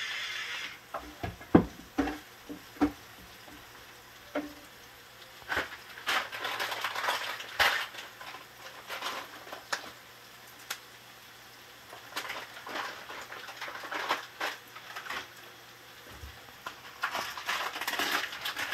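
Wooden spatula stirring and scraping sautéing onions and garlic in a frying pan, knocking against the pan a few times early on and then scraping in repeated stretches. A pepper grinder runs briefly and stops about a second in.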